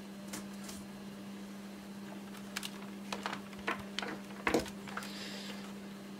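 Scattered small clicks and taps of laptop plastic parts and tools being handled during disassembly, about eight in all, the loudest about four and a half seconds in, over a steady low hum.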